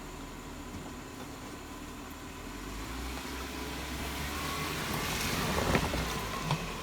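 Jeep Wrangler JKU's 3.6-litre V6 running under load while crawling off-road, growing louder about halfway through, with a sharp knock near the end.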